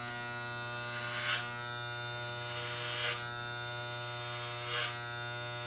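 Corded Wahl electric hair clippers running with a steady buzz while being drawn up the nape of the neck, with about three brief louder rasps as the blade passes through hair.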